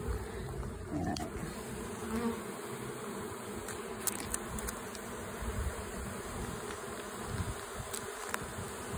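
Many honeybees buzzing steadily around and over an open hive, a dense, continuous hum from a colony flying about agitated and disoriented, which the beekeeper suspects is robbing. A few faint clicks sound here and there.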